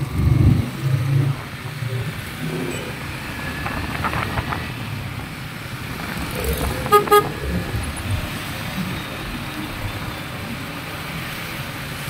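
Riding noise of a Yamaha motorcycle on a wet road, a steady low engine and wind rumble as it picks up speed. A vehicle horn gives a quick double toot about seven seconds in.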